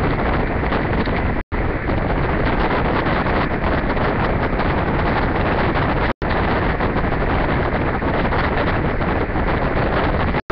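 Steady, loud rushing noise without tone or rhythm, like static or wind on a microphone. It cuts out for an instant twice, about a second and a half in and about six seconds in.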